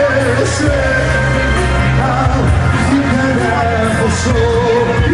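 A male vocalist sings live into a microphone over electronic keyboard accompaniment with a steady heavy bass, loud through a PA system.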